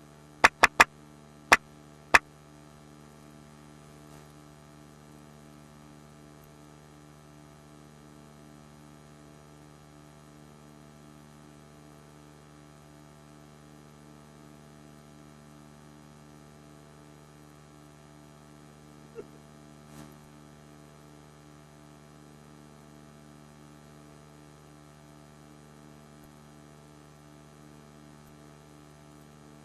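Faint steady electrical mains hum, with several fixed tones. Five sharp, loud clicks come in quick succession in the first two seconds, and two faint clicks follow about twenty seconds in.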